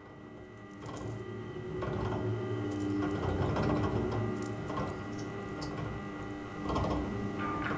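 A steady machine-like whirring hum with a thin high tone running through it, swelling up over the first few seconds, with a few faint clicks.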